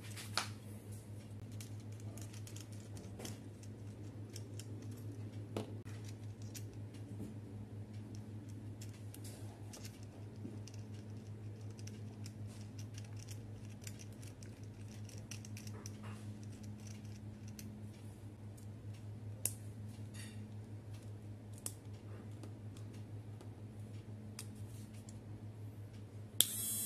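Small scattered clicks and light handling noises as a sanding drum is fitted onto the mandrel and collet of a 12V mini electric grinder, over a steady low hum. Near the end the grinder is switched on and runs with a high whir.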